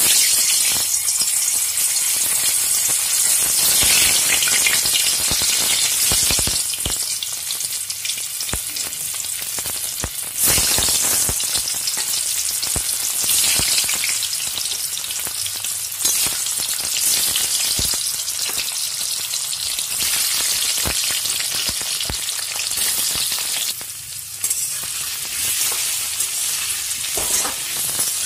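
Boiled baby potatoes frying in hot mustard oil in a steel kadai: a loud sizzle starts suddenly as the first potato drops in and carries on, with occasional knocks against the pan.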